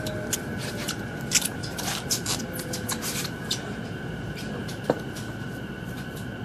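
Interior running sound of an E233 series electric train's motor car slowing on final approach to a terminus: a steady rumble of the wheels with many light clicks and rattles, a sharper knock about five seconds in, and a faint falling whine from the traction motors under braking.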